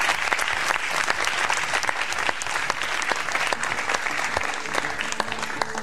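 Audience applauding, with many hands clapping steadily, fading near the end as soft mallet-instrument music comes in.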